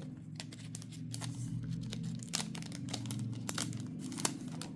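Packaging crinkling and rustling as it is handled, with irregular sharp crackles, over a low steady hum.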